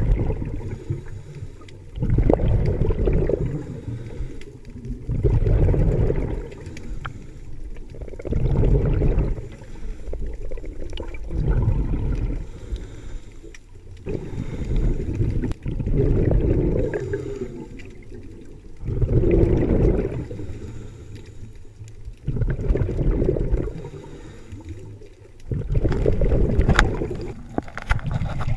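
A scuba diver's exhaled bubbles from the regulator, a low gurgling rumble heard underwater, in bursts that come about every three seconds with each breath.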